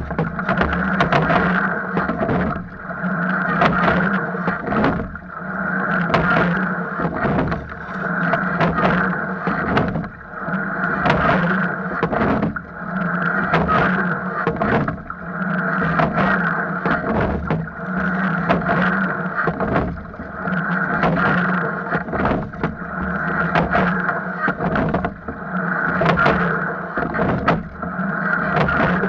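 Rowing shell under way with the crew rowing. A rhythmic stroke cycle repeats about every two seconds, with a sharp knock at each stroke from the oars in their oarlocks over the rush of water along the hull.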